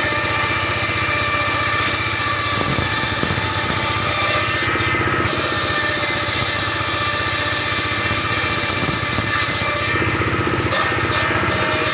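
Circular saw machine running steadily while ripping timber into roof battens. Its high hiss drops out briefly twice, about five and ten seconds in.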